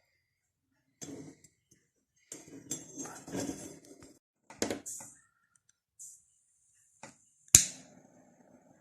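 Irregular rustling and knocking, as of things being handled, ending in one sharp click about three quarters of the way through.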